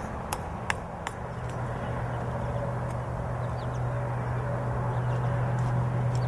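A few short sharp clicks in the first second, then a steady low engine hum that begins about a second in and slowly grows louder.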